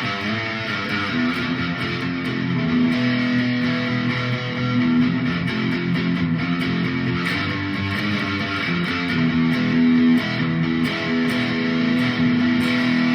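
Chapman electric guitar being played: a continuous run of plucked notes and chords, several of them held and left ringing for a second or more.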